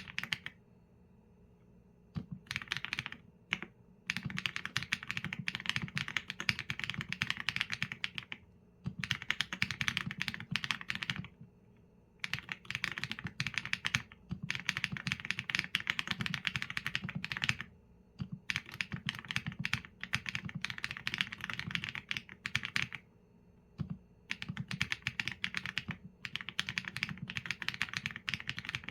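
Typing on a mechanical keyboard with Leobog Graywood V4 linear switches and PBT keycaps: fast runs of key clacks a few seconds long, broken by short pauses.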